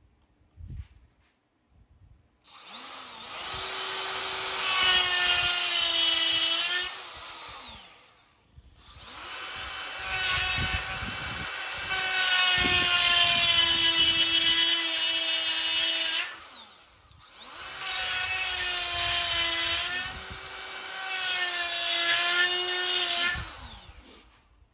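Die grinder with a carbide burr grinding the porcelain of a spark plug, in three runs of several seconds each. Its high whine dips and wavers in pitch under load. The carbide makes slow work of the hard porcelain.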